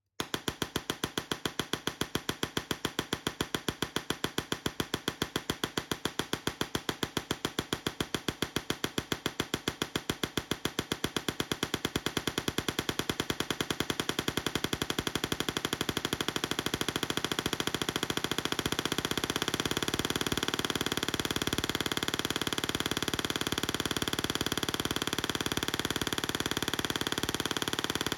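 Tesla coil firing: a rapid, evenly spaced crackle of spark discharges. About halfway through, the pulses run closer together into a denser, slightly louder buzz.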